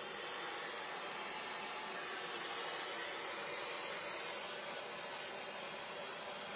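Gas welding torch flame hissing steadily as it is played over a steel radiator pipe.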